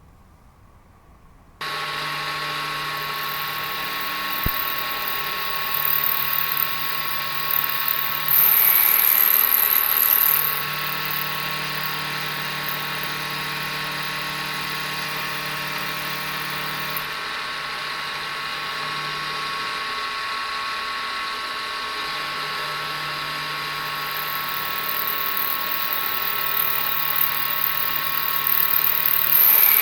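Aciera F1 milling machine running steadily as its cutter mills the copper dial, coming in about a second and a half in. A high-pitched cutting hiss grows louder about eight seconds in for a couple of seconds, and again over the last few seconds.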